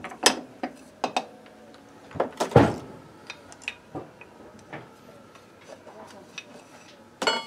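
Metal parts and tools of a microcar's CVT variator pulley clinking and knocking against a bench vise while being handled, the loudest clank about two and a half seconds in with a brief metallic ring, and another clatter near the end.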